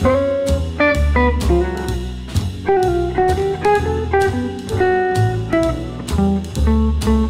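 Background music: a guitar-led tune over a steady drum beat.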